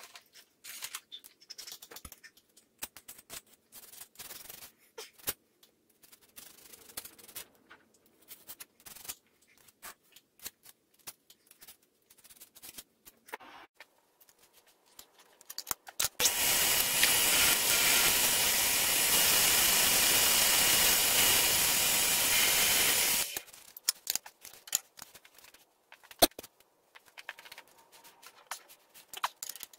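Workshop handling sounds: scattered clicks and knocks of metal parts and tools. Then a power tool runs steadily and loudly for about seven seconds before cutting off abruptly.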